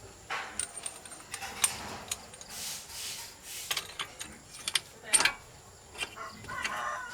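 Irregular metallic clicks and clinks with a few short scrapes, as hand tools and metal parts are handled during repair work.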